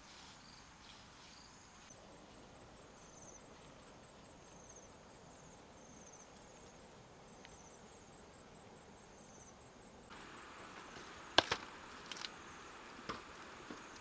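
Faint outdoor ambience with insects chirping, a row of short, high chirps repeating for the first ten seconds. Later come a few sharp snaps, the loudest about eleven seconds in.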